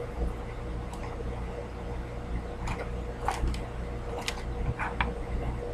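A person chewing a soft, slightly gooey chocolate no-bake-style cookie, with a few short wet mouth clicks in the second half over a steady background hum.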